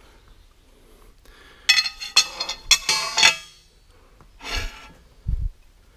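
Steel machinist's square clinking, ringing and scraping against a machined metal angle plate as it is set against the face to check squareness. There is a cluster of sharp metallic clinks about two seconds in, then a softer knock and a low thump near the end.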